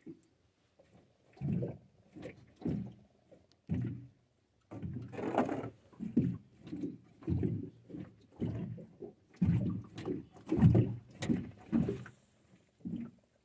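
A string of irregular low knocks and thumps in an aluminum boat, one to two a second, a few of them loud.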